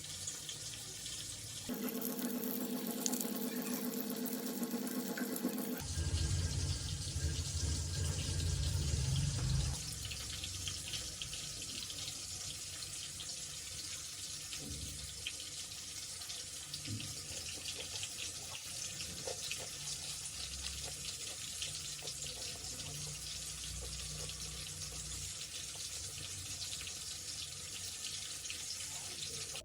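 Tiger prawns deep-frying in hot oil: a steady sizzle with fine crackling throughout. A humming tone sits over it for a few seconds near the start, then a low rumble for a few seconds more.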